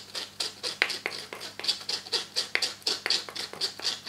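Wooden spoon scraping homemade chocolate-hazelnut spread through a fine metal mesh sieve in quick, even strokes, about four a second: sieving to work any remaining hazelnut bits into a smooth spread.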